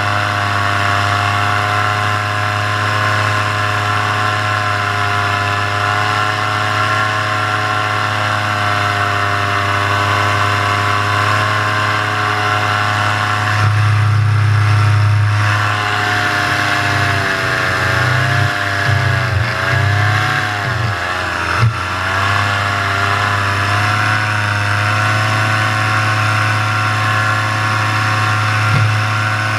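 Paramotor engine and propeller running at full throttle in flight, a steady engine note whose pitch wavers up and down for several seconds past the middle before settling again.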